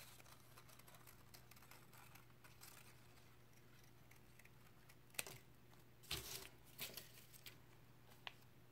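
Scissors snipping paper, cutting out a small circle: faint, quick snips, with a few louder sharp snips and clicks in the second half.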